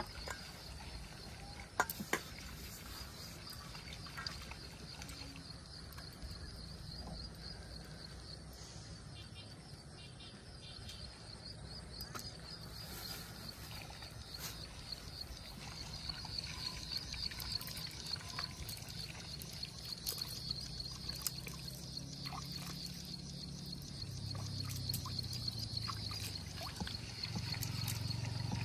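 Steady, high-pitched chirring of insects in the grass, with a few sharp handling clicks, one loud about two seconds in. A low rumble grows louder near the end.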